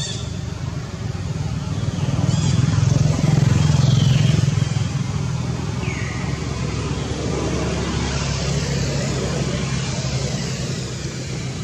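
A motor vehicle's engine running, a low steady hum that swells to its loudest between about two and five seconds in. A few short, high falling calls sound over it.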